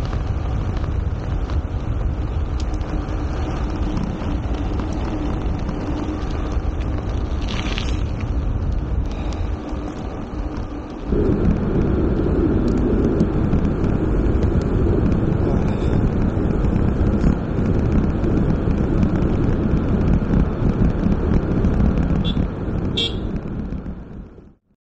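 Wind rushing over the camera microphone with tyre noise from a gravel road bike coasting downhill, a steady low rumble that gets louder about eleven seconds in. The sound cuts off abruptly just before the end, with a brief high sound shortly before that.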